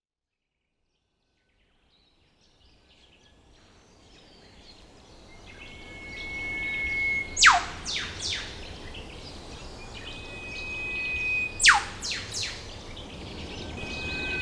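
Outdoor ambience fading in after a short silence, with music, and bird calls: twice a long, even whistle ends in a loud, sharp downward whip-crack, followed by a few short notes.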